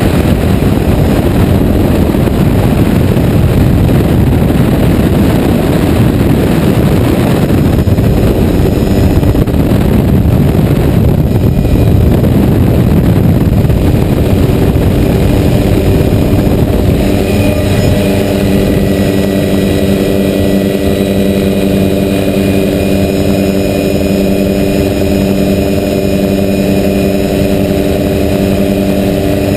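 Helicopter in flight with the doors off: rotor and engine noise mixed with heavy wind rushing over the microphone. About two-thirds of the way through the wind noise eases and a steady hum of evenly spaced tones comes through clearly.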